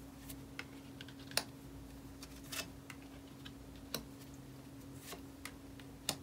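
Cards being laid down one at a time on a table: a scattered series of light taps and clicks, about eight in all, over a faint steady electrical hum.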